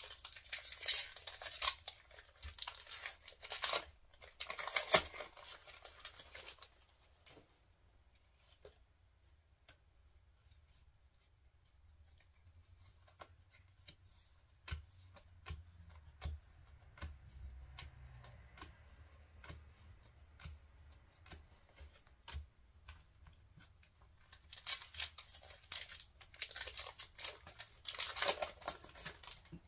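Foil wrappers of Pokémon TCG booster packs being opened, crinkling and ripping in two noisy stretches, one over the first several seconds and one near the end. Scattered light clicks between them come from cards being handled.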